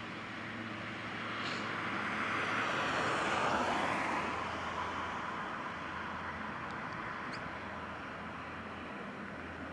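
GE90 jet engines of a Boeing 777-300ER running at taxi power close by: a steady rushing hum that swells to its loudest about three and a half seconds in as the aircraft rolls past, then eases.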